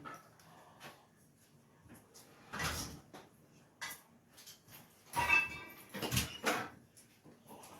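Deadbolt lock parts and tools knocking and clattering against a door during installation: a handful of short, separate knocks, the loudest cluster about five to six and a half seconds in, one with a brief metallic ring.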